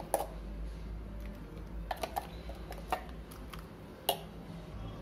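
A few sharp taps and clicks from a steel mixer-grinder jar as thick green mint-coriander paste is tipped and knocked out onto fish pieces in a plastic bowl, the loudest just after the start and about four seconds in, over a low steady hum.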